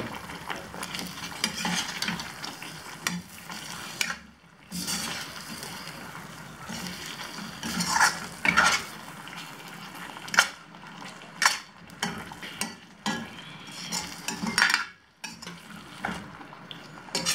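A spoon stirring paneer into thick masala gravy in a hot pan, with irregular scrapes and a few sharp knocks of the spoon against the pan, the loudest about ten seconds in, over a steady sizzle.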